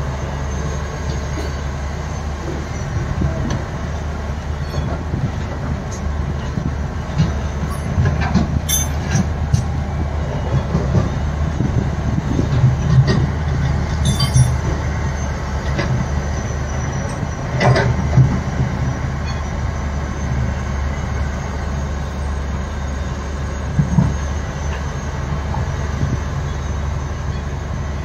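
Large Tata Hitachi excavator and loaded dump truck diesel engines running with a steady low rumble, broken by a few sharp bangs and clatters as the bucket drops rock into the truck's steel body, loudest about a third of the way in, near the middle and again later on.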